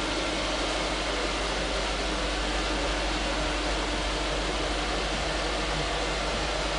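Audi S4 idling steadily in an enclosed garage: an unchanging low hum under a hiss.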